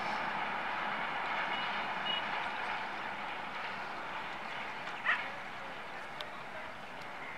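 A distant express train of LHB coaches hauled by a WAP-7 electric locomotive runs away around a curve, giving a steady rushing rail noise. A faint, short, high beep comes about two seconds in. About five seconds in there is a brief sharp sound, the loudest moment.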